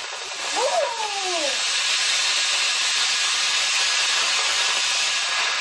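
Lit firework hissing steadily as it burns and sprays sparks.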